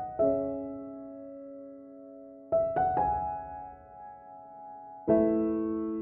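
Slow background piano music: single notes and chords struck every couple of seconds and left to ring out, with a quick run of three notes near the middle and a fuller chord near the end.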